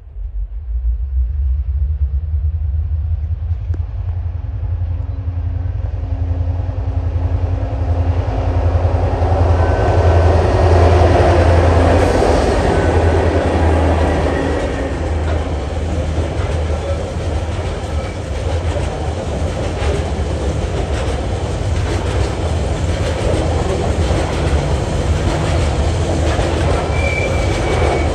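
TasRail diesel locomotive 2051 leading a coal train: its engine grows louder as it approaches and passes about a dozen seconds in. Then the coal hopper wagons roll by with a steady rumble and their wheels clicking over the rail joints.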